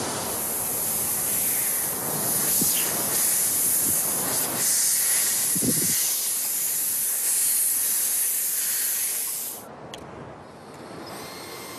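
Steady hiss of wind and surf on a beach, cutting off abruptly about ten seconds in to a much quieter background.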